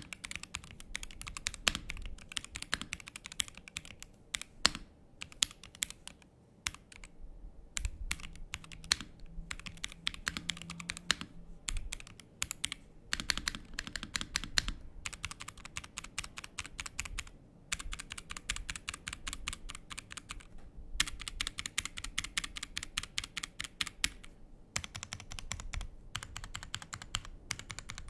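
Typing on a Rexus Daxa M82X Ultimate gasket-mount mechanical keyboard: fast runs of key clacks broken by brief pauses.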